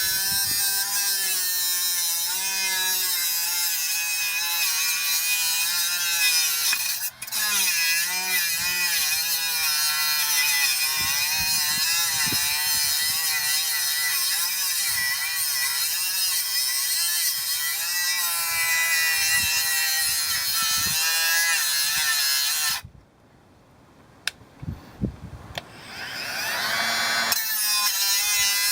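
Parkside PWSA12 B1 12-volt angle grinder running, its motor whine wavering up and down in pitch as the load on the disc changes. It briefly dips about seven seconds in. Near the end it cuts off suddenly, a few clicks follow, and then it spins back up with a rising whine.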